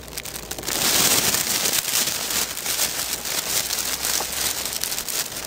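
Frozen denim jeans rasping and crinkling against each other with each stride through deep snow, with footsteps in the snow. The jeans are stiff because melted snow has frozen on them again. A dense crackly rustle that grows loud about a second in.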